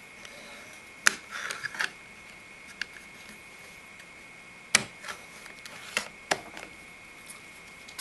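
Plastic USB drive enclosure being snapped shut: sharp clicks and snaps of the plastic cover as it is pressed and fitted onto the case, a quick cluster about a second in and the loudest click nearly five seconds in, with a few lighter clicks after.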